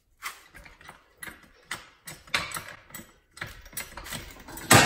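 Hydraulic trolley jack being pumped to lift a car's rear hub: a run of short mechanical clicks about every half second, with one louder knock near the end.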